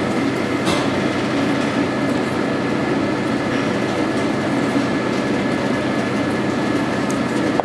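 Kitchen ventilation running: a steady hum and rush of air with a constant low drone and a thin high tone, and a single faint knock just under a second in.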